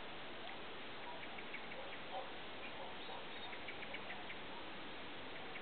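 Faint, scattered chirps of small birds over a steady hiss, with a quick run of tiny high ticks about two-thirds of the way through.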